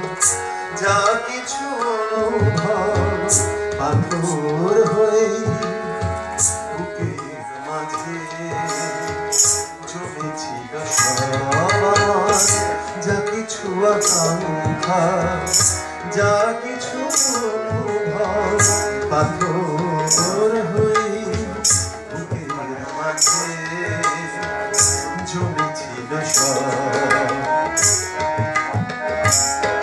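Tabla keeping a steady rhythm under a melody, in a Bengali song set in raga Darbari Kanada.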